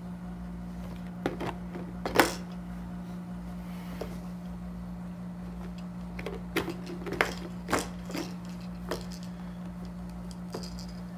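Scattered clicks and knocks of a plastic Fisher-Price stacking-ring toy being handled and tipped over on a high-chair tray, about eight in all, the loudest about two seconds in, over a steady low hum.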